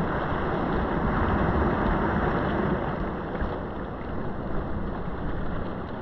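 Steady rushing noise with no tone or rhythm, like wind or moving water.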